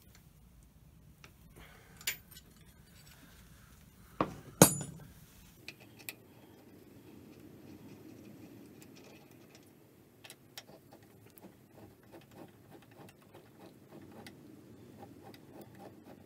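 Hand tools and metal parts clinking and knocking on a lathe's cast-iron gearbox and bed, with two sharp knocks about four and a half seconds in, then a run of light metallic clicks and ticks.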